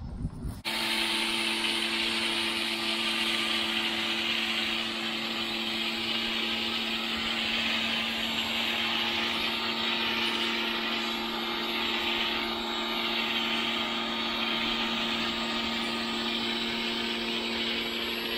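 Electric motor of a cleaning machine running at a steady pitch under a loud hiss. It starts abruptly about half a second in.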